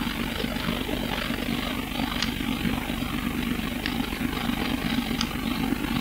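Inside a MAN SL200 city bus, its diesel engine running steadily, with a few faint ticks or rattles from the cabin.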